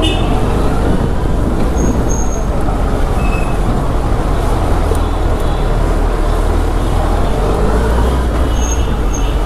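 Suzuki Hayabusa's inline-four engine running at low speed in stop-and-go traffic, a steady low rumble picked up close on the bike, with street traffic around it.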